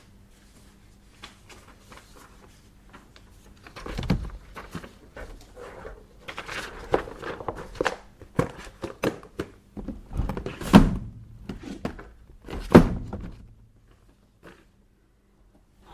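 Office desk handling sounds in a small room: scattered light clicks and rustling, with a few heavy thuds, the loudest about eleven and thirteen seconds in.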